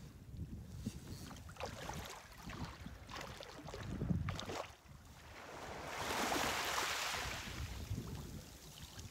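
Wind buffeting the microphone over small waves lapping at the shoreline, with scattered splashes and a louder rush of noise lasting about two seconds, some six seconds in.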